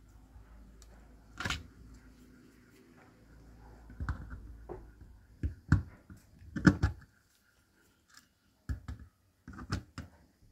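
Pliers clicking and knocking on the small geared motor's sheet-metal casing and the plastic turntable base as the casing is bent to hold the top cover: a scatter of sharp, irregular taps, the loudest near the middle.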